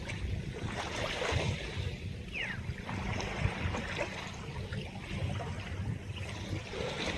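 Wind buffeting the microphone in uneven gusts over the wash of waves on the bay, with one brief high chirp about two and a half seconds in.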